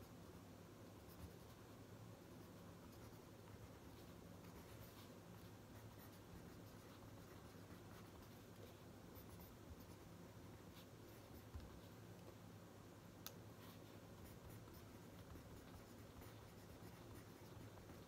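Faint scratching of a pen writing on notebook paper, with a few light ticks and a low steady hum underneath.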